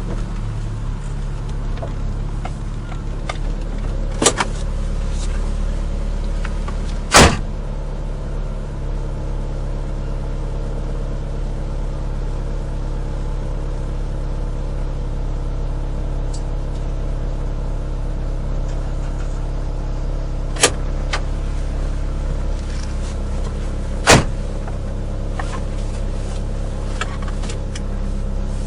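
Nissan Micra 1.3's four-cylinder engine running steadily on the move. A few short, sharp knocks or clicks cut through it, the loudest two about seven seconds in and near the end.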